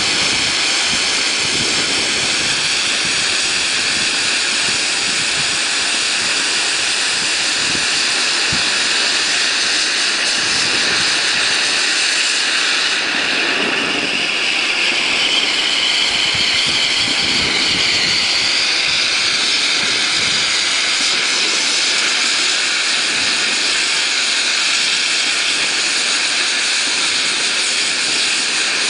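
Ground fountain fireworks spraying sparks with a loud, steady hiss.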